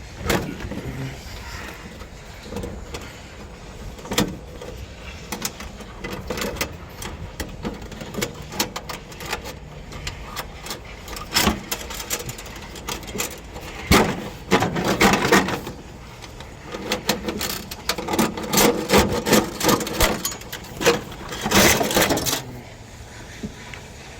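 Irregular footsteps and handling noise of someone walking outdoors, with short clusters of louder crunching and rustling in the second half.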